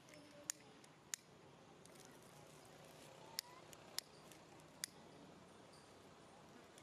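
Near silence: faint outdoor background broken by five short, sharp clicks spread through it.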